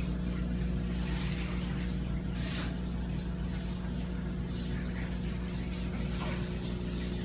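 Steady low electrical hum from the running aquarium equipment, with a brief soft hiss about two and a half seconds in.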